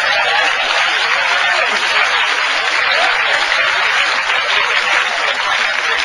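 Large theatre audience applauding steadily, with laughter mixed in, in reaction to a comedian's punchline.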